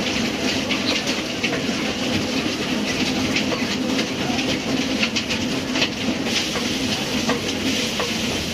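A motor-driven machine running steadily with a low hum and continuous rattling clatter, with sharp knocks and clicks scattered through it.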